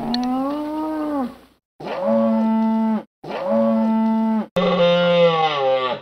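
Moose giving four long, moaning calls one after another, each about a second or more long and rising then falling in pitch, cut off abruptly between them.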